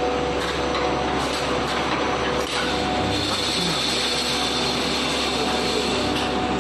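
3D EPS wire mesh panel welding machine running: steady mechanical clatter of rapid clicks over a constant hum.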